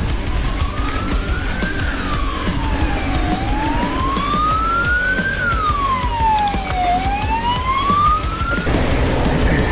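A siren wailing, its pitch rising and falling slowly, three rises and two falls, before it cuts off abruptly near the end, over a steady background rush.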